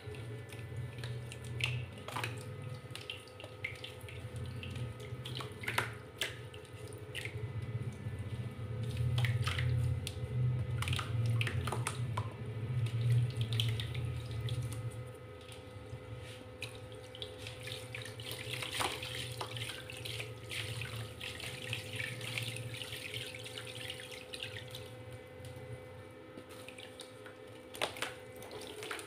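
Hands swishing and churning water in a plastic basin as crumbled dry mud dissolves into it, with scattered small splashes and clicks. The churning is heaviest in the first half, giving way to lighter, hissier swirling.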